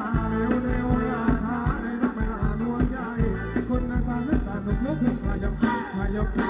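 Thai ramwong dance music from a live band: a steady drum beat under a bending melody line.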